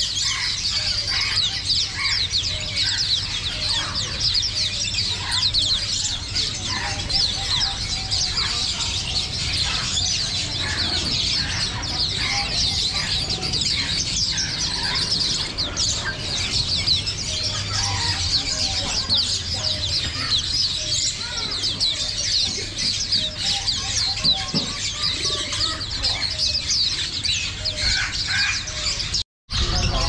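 A dense chorus of many small caged songbirds chirping and twittering at once, with lower calls scattered through, over a low steady background rumble. The sound drops out for a moment near the end.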